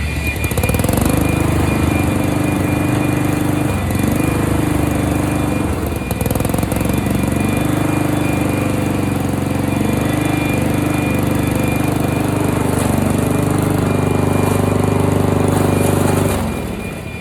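Honda walk-behind lawn mower engine running under load while shredding leaves, its pitch dipping several times as the blade takes in the leaves, then falling away near the end.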